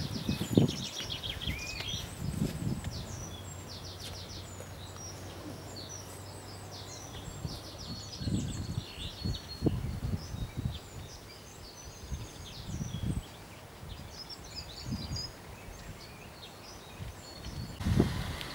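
Small songbirds chirping and singing, many short twittering calls and trills, over irregular low rumbles of wind on the microphone.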